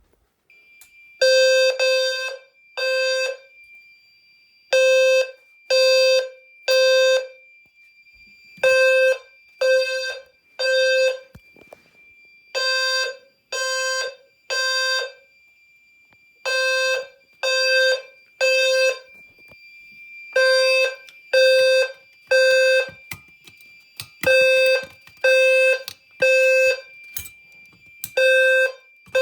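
Fire alarm low-frequency sounder going off in the temporal-3 evacuation pattern: three low, buzzy tone blasts about a second apart, then a pause, repeating. A thin steady high tone runs underneath. The system is in alarm, set off by a test of the smoke detector.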